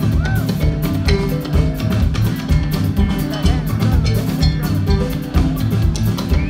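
Live band music played loud: a drum kit keeps a steady beat under electric guitar and the gyil, the Ghanaian wooden xylophone.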